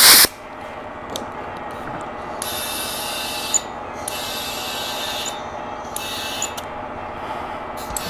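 A rag wiping grease off the mower's front wheel spindle, in three bouts of scratchy rubbing, with a brief loud burst of noise at the very start.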